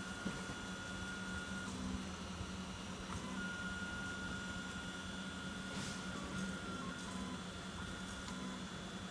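Home-built 3D printer running a print: its stepper motors whine as the head and bed move, with a steady low hum and a higher tone that cuts out and comes back.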